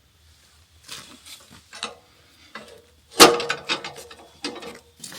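A series of knocks and metal clanks, the loudest a hard clank about three seconds in that rings briefly, from parts of a portable bandsaw mill being handled and adjusted.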